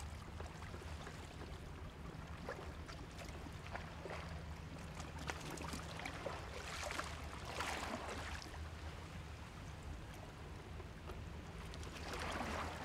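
Shoreline ambience: small waves lapping and trickling against rocks, with a few gentle swells of wash, over a low steady hum of distant engines.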